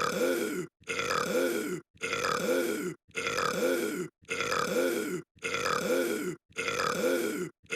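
A single burp, the same recording looped over and over: about seven identical belches, one roughly every second, each cut off by a brief dead-silent gap.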